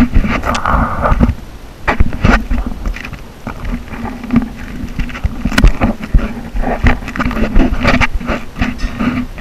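Light rail tram running, heard from inside the driver's cab: a steady low hum over running noise, broken by frequent irregular knocks and rattles.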